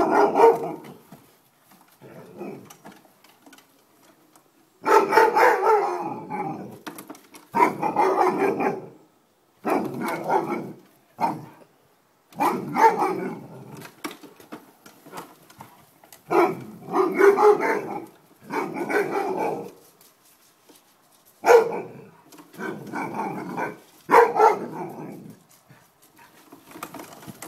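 A dog barking and vocalizing in repeated drawn-out bouts, each a second or so long, about a dozen times with short pauses between.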